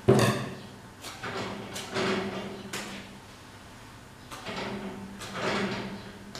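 Butcher's twine being pulled through pork skin as a porchetta is sewn shut: a series of drawn-out swishes, about one a second, the first opening with a sharp knock. A steady low hum runs underneath.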